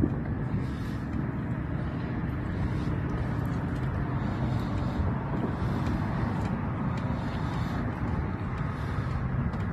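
Steady low rumble of wind over the water and across the microphone on an open boat, with no distinct events.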